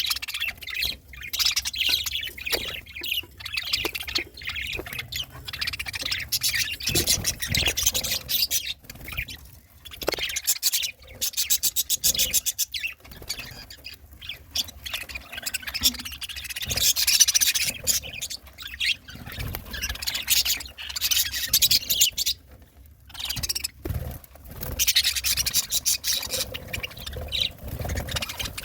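Budgerigars chirping and chattering in a fast, busy warble of short high calls, with a rapid buzzy trill in the middle and a few brief pauses. A few soft knocks come in among the calls.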